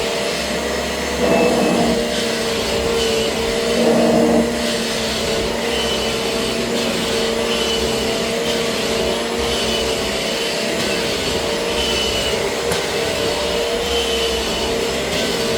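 Kirby Generation 6 upright vacuum cleaner running steadily as it is pushed over carpet: a constant motor whine over a rush of airflow. It swells louder twice in the first few seconds.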